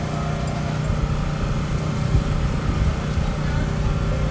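A small engine running steadily at idle: a constant low hum.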